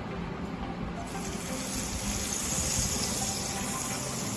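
Butter sizzling as a pastry brush spreads it over the hot, preheated plates of an electric waffle maker: a steady hiss that grows brighter about a second in.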